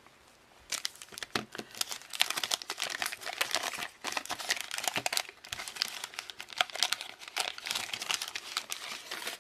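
Wax-paper wrapper of a 1988 Topps football card pack being torn open and crinkled: dense paper crackling that starts about a second in and goes on in spells with short pauses.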